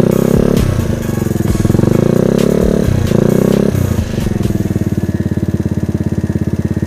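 TNT Motor Roma 50 cc four-stroke scooter engine with a Leovince aftermarket exhaust, running under throttle with its pitch rising and falling. About four seconds in it drops to a low, even pulsing as the throttle is eased off and the scooter rolls slowly.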